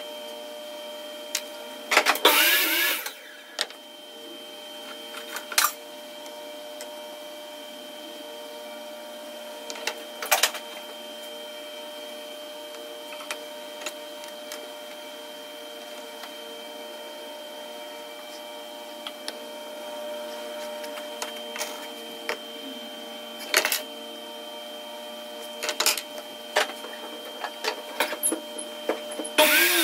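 Workshop machine humming steadily, with scattered sharp knocks of wood being handled and two short, loud bursts of power-tool cutting, about two seconds in and near the end.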